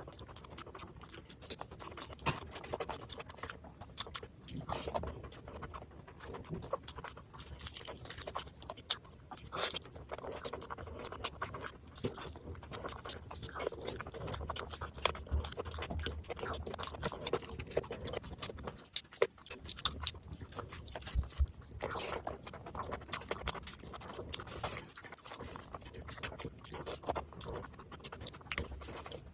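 Close-miked eating of chicken biryani and chicken leg pieces by hand: chewing and biting, with many short mouth clicks packed close together.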